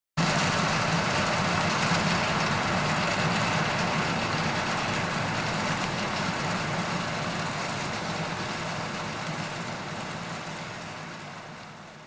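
Combine harvester running as it harvests in the field: a steady engine and machinery drone with a low hum, fading out gradually over the last few seconds.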